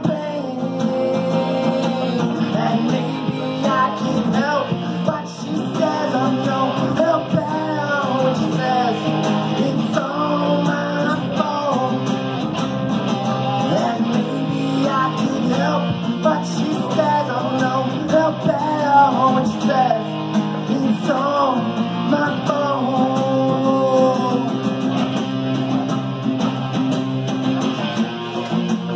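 Live acoustic duo: two acoustic guitars strummed together while a man sings lead, amplified through a small PA.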